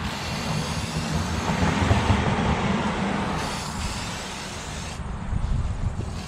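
Aerosol can of Rust-Oleum Universal metallic spray paint hissing in bursts as paint is sprayed onto a metal rack, over a steady low rumble.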